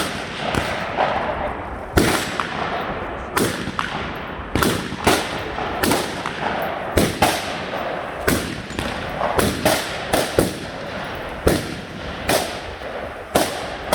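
Gunfire from several guns at a shooting range: about two dozen sharp shots at irregular intervals, some close together and overlapping, with a steady background hiss between them.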